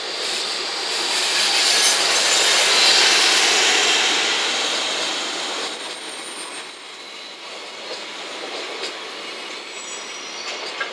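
JR Freight EF210 electric locomotive passing close by, loudest about two to four seconds in. The container flat wagons then roll past, with sharp wheel clicks near the end.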